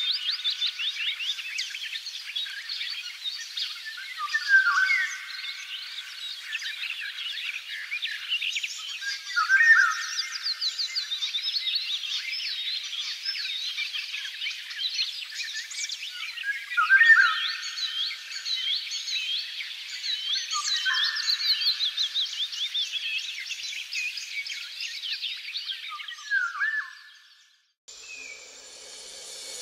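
Dense chorus of songbirds: many fast chirps and trills together, with a louder, lower falling call every few seconds. It stops abruptly near the end, and soft music begins.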